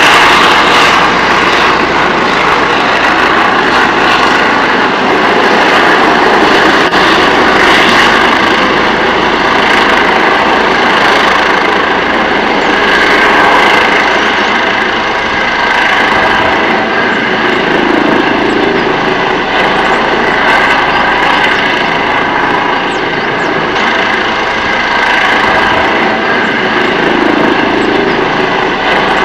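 Helicopter's turbine engine and rotor running as it lands: a steady whine over loud rushing noise.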